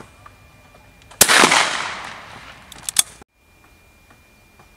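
A single shotgun shot from an over-and-under shotgun fired at a clay target, a sudden loud report that rings out and fades over about two seconds, with a brief sharp crack near its tail.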